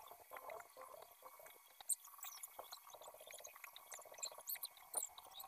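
Faint, fast-forwarded sounds of hand soldering on a CRT TV's circuit board: scattered small clicks and brief high chirps.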